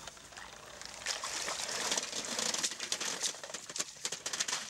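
Water splashing and trickling as a wire-mesh oyster tray is dragged through shallow water, with scattered clicks and rattles of the mesh. It grows louder about a second in.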